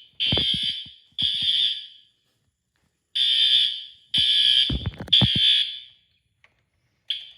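System Sensor fire alarm horn sounding the temporal-three evacuation pattern. Three loud blasts come about a second apart, then a pause of about a second, then three more, and the next set starts near the end.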